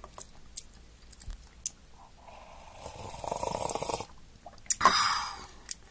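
Eating sounds from the last of a cup of instant udon noodles: a few small mouth clicks, then a noisy slurp of about two seconds in the middle and a short loud one near the end.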